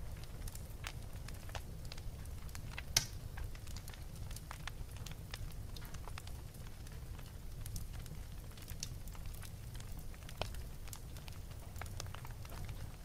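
Wood fire crackling in a fireplace: a steady low rumble with scattered sharp pops, one louder pop about three seconds in.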